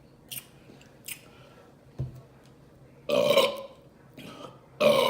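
A woman burps loudly twice, first about three seconds in and again near the end, after a few faint clicks.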